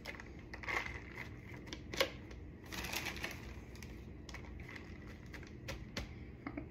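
Shredded lettuce being scooped and dropped into a compartment container, with light rustling and scattered small clicks, a sharper click about two seconds in.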